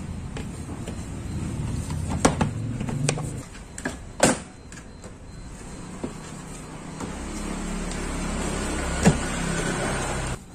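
Hard plastic panels of an Olymplast ODC 03 M drawer cabinet clicking and knocking as they are handled and pressed together during assembly. The clicks are scattered, with the sharpest about four seconds in and another about nine seconds in, over a low steady rumble.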